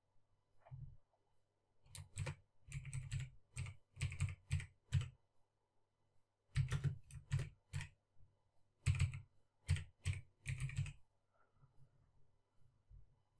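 Typing on a computer keyboard: quick runs of keystrokes in three bursts, the first about two seconds in, the next two around seven and ten seconds in.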